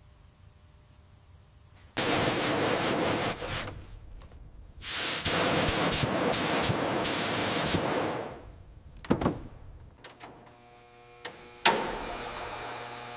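Two long bursts of loud hissing spray, each lasting a few seconds, followed by a few sharp clicks and a fainter steady hum.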